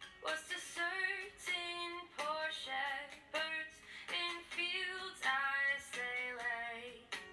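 Background music: a woman singing a song in short sung phrases.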